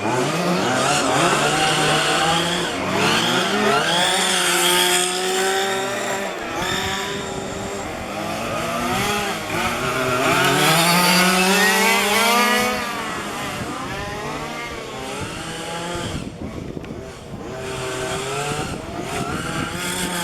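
Several 1:5 scale petrol RC cars' small two-stroke engines running on a race track, their overlapping notes rising and falling as they rev up and back off through the corners. The loudest stretch is a long rising rev about two-thirds of the way through, after which the engines sound somewhat quieter.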